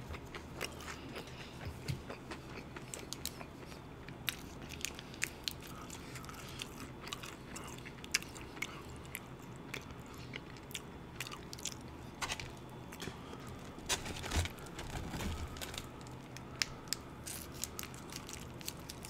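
Close-miked chewing and mouth sounds of a person eating, with many small wet clicks and a few louder crunchy clicks around twelve to fifteen seconds in.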